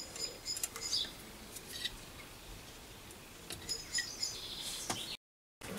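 Faint small clicks and rubbing as a thermometer probe is pressed into the cooling fins of a three-phase electric motor by hand, with faint high chirping in the background near the start and again later on.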